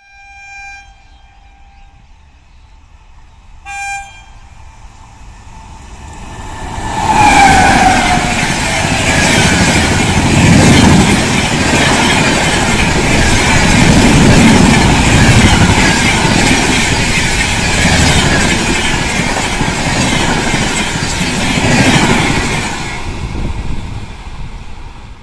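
WAP7 electric locomotive's horn sounding a long blast and then a short one as it approaches. The horn drops in pitch as the train reaches the spot. The express's coaches then rush past with a loud steady rumble and regular wheel clatter, at about 130 km/h, and the sound fades as the train recedes.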